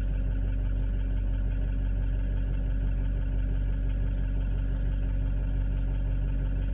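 2003 Ford Super Duty's 6.0L Power Stroke V8 turbo-diesel idling steadily while still cold.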